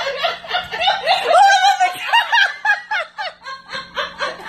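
Helpless, high-pitched laughter in quick rhythmic bursts, with no words.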